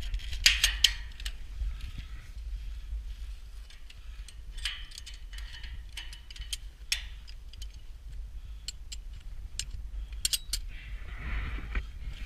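Irregular metallic clinks and clanks of a climber's gear and hands against a steel lattice tower, the louder knocks about half a second in and around ten seconds in. A steady low wind rumble on the microphone runs underneath.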